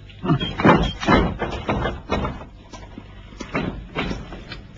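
A door being handled and closed: about ten knocks and thuds at uneven spacing.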